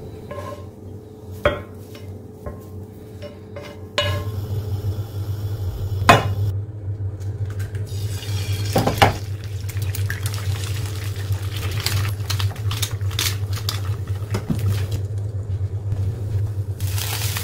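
Kitchen clatter of a spoon on bowls with a few sharp clinks, then eggs cracked into hot oil in a frying pan and frying, with a steady low hum underneath. The sizzling grows louder near the end.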